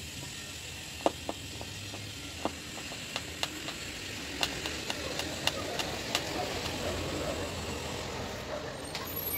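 Hand screwdriver driving wood screws into the stool's wooden frame: about a dozen sharp, irregular clicks and taps in the first two-thirds. Under them runs a steady low rumble of vehicle traffic that swells a little in the second half.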